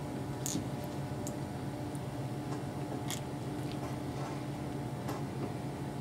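Quiet room tone with a steady low hum and a few faint scattered clicks.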